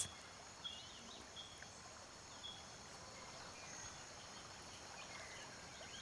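Faint natural wildlife ambience: a steady high insect drone, with a few short bird chirps in the first half.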